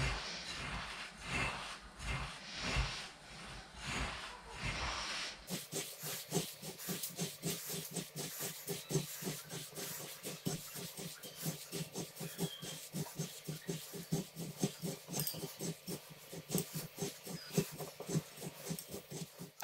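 Hands mixing and squeezing crushed biscuits with melted butter in a bowl, a soft crumbly squishing. After about five seconds it settles into a quick, regular rhythm of about five squeezes a second.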